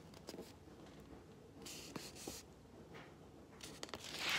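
Faint rustle of a paper picture book being handled and moved about, with a few soft clicks and a short hiss a little under two seconds in.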